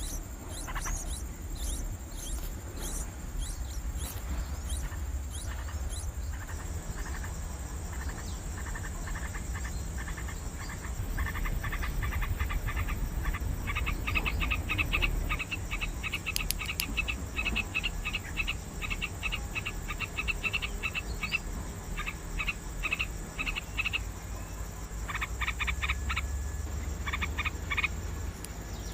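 Bulbul nestlings calling in fast runs of short, high chirps. The chirps start about eleven seconds in and come in bursts with short breaks near the end, over a low rumble.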